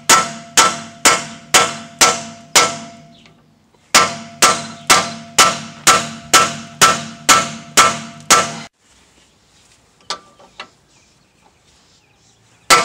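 Steel hammer striking a bearing driver to drive a new rear wheel bearing into a Chevy Tahoe's axle housing, each blow a ringing metallic clang, about two a second. Six blows, a short pause, then about ten more stopping about two-thirds of the way through; two light taps follow and one last blow comes near the end. The blows continue until their sound turns from hollow to hard, the sign that the bearing is fully seated.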